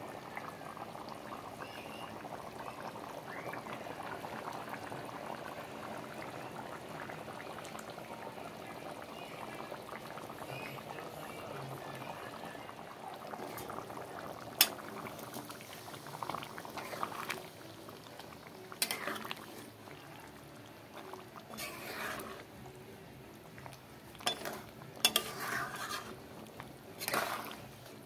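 Chicken curry gravy boiling in a metal kadai, a steady bubbling. From about halfway the bubbling quietens and a spatula knocks and scrapes against the pan several times as the curry is stirred.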